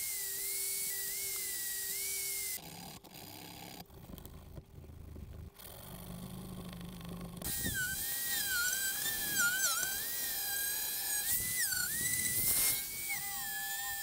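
Handheld rotary tool spinning at high speed with a small wheel bit, cleaning grime off old steel buckles: a high whine whose pitch wavers and dips as the bit works the metal. It drops away after about two and a half seconds and comes back about five seconds later, dipping more sharply.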